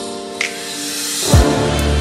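Background music: held chords, then a deep bass note coming in with a falling thump about a second and a half in.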